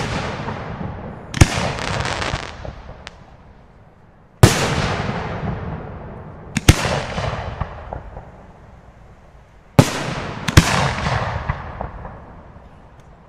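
Aerial firework shells bursting: five sharp bangs a few seconds apart, the last two close together, each followed by a long fading tail of echo and crackle.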